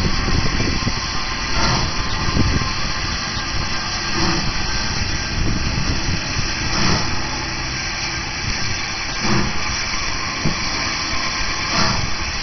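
Santa Fe 3751, a 4-8-4 steam locomotive, moving slowly in reverse: slow exhaust chuffs every two to three seconds over a steady low rumble and hiss.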